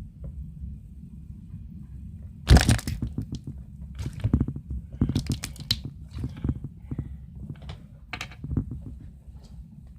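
Slime being squeezed and worked by hand, with clusters of wet crackling pops from trapped air, the loudest about two and a half seconds in and more following in bursts.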